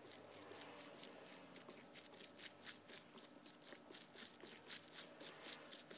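Faint, irregular squelching and crunching of gloved hands mixing a wet mixture of chopped banana blossom and raw chicken in a bowl.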